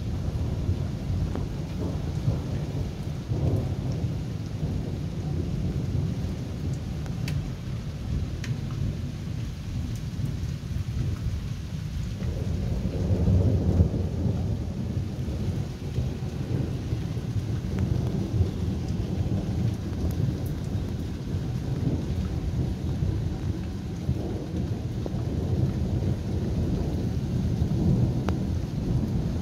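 Rolling thunder rumbling low and continuously over steady rain, swelling loudest about halfway through, with a few sharp ticks.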